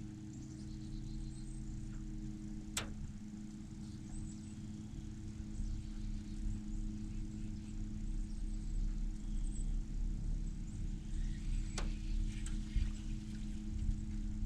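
Boat motor running at a steady speed, a constant low hum, with two sharp clicks about three seconds in and near the end.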